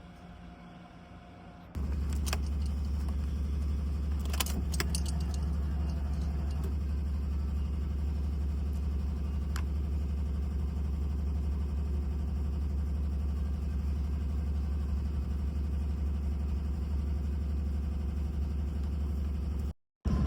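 Honda Civic EK4's B16 four-cylinder engine running at a steady speed. It sets in abruptly about two seconds in and holds an even, low hum.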